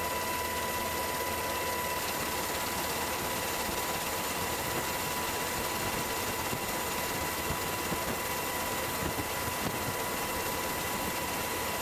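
Aircraft engine noise heard from on board: a steady rush with a constant high whine.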